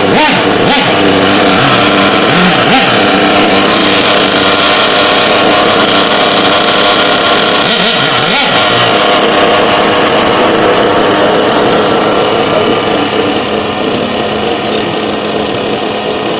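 Small nitro-fuelled RC car engine running steadily at high revs, loud, easing off slightly near the end.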